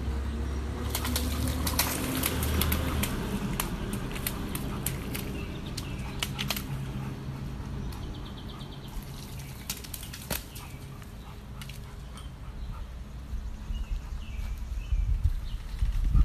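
A dog splashing and wading through a shallow muddy puddle: irregular slaps and sloshes of water, busiest in the first several seconds and thinning out after. A faint low steady hum runs underneath.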